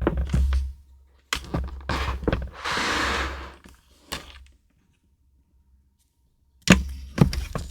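Journaling stationery being handled on a desk: light knocks and taps of items set down, with a stretch of paper or plastic rustling in the first few seconds. The sound stops for about two seconds, then a few more knocks come near the end.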